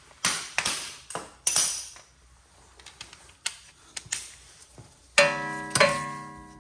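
Metal tools being handled: a few sharp clicks and knocks, then about five seconds in a loud metallic clang that rings on for over a second, with a second knock inside it, as a torque wrench and socket are fitted onto a suspension bolt.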